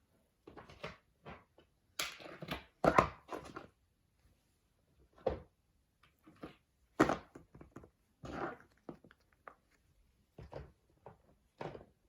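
Fidget toys, among them silicone pop-it poppets, being picked up and set down: a run of irregular soft knocks, clatters and rustles, loudest about three seconds and seven seconds in.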